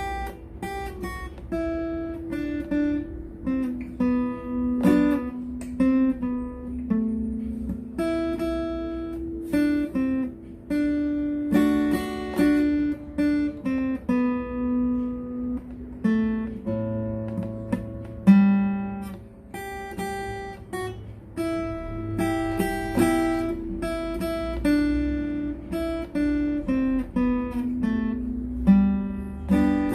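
Acoustic guitar played by a beginner: single-note melody lines picked one note at a time in the G scale, with an occasional strummed chord.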